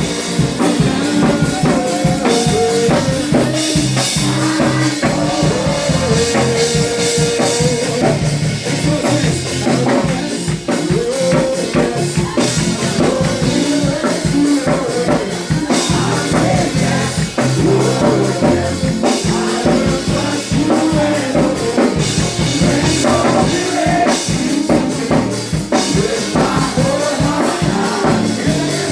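Live gospel praise-and-worship music: a drum kit keeping a steady beat under singing and instruments.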